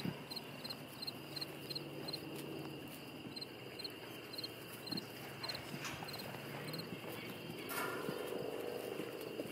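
Crickets chirping: short two- or three-pulse chirps about three times a second, with a pause partway through, over a steady high-pitched insect drone. A few soft knocks come now and then.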